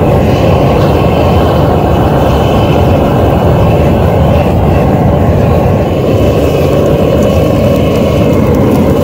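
Vevor two-burner propane forge running, a loud, steady rush of the gas burners mixed with wind buffeting the microphone. The flames burn unevenly in the wind.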